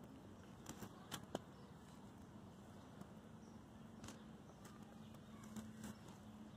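Near silence: faint outdoor background with a low steady hum and a few soft clicks and taps, the sharpest about a second in.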